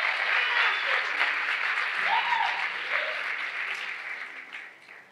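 Church congregation applauding, the clapping thinning out and dying away near the end.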